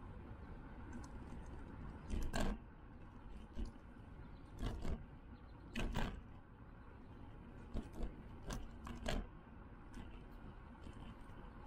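Steady wind and rolling noise from a moving e-bike, picked up by a camera mounted on the bike, with about six short, sharp knocks and rattles spread through it.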